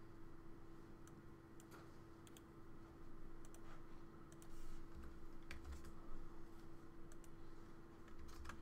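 Faint computer keyboard keystrokes and mouse clicks, irregular and scattered, over a steady low hum.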